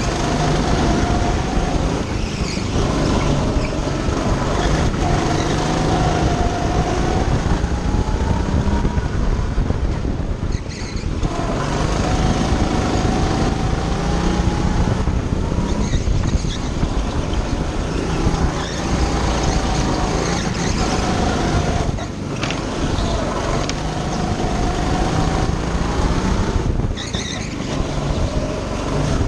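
Go-kart engine heard from on board, running hard, its pitch climbing along the straights and dropping sharply about four times as the throttle is lifted for corners.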